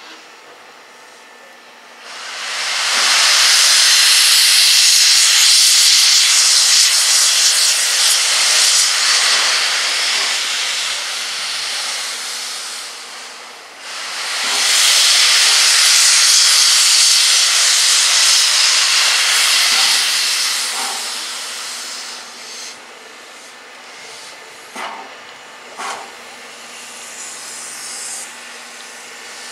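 Class 01 express steam locomotive blowing off steam in two long, loud hisses. The first starts about two seconds in and lasts about ten seconds; the second, after a brief dip, fades out about two-thirds of the way through. It then goes quieter, with a few light knocks near the end.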